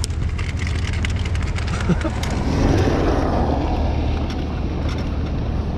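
Car driving, heard from inside the cabin: a steady low engine and road hum. A scatter of sharp ticks runs through the first half, and a swell of rushing noise comes about halfway through.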